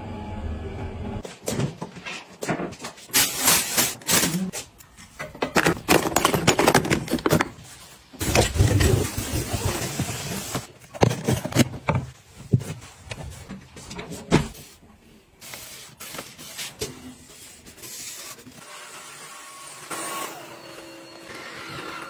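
Irregular household handling noises: sharp clicks, knocks and short scraping and rustling sounds as things are moved and put away, growing quieter and steadier near the end.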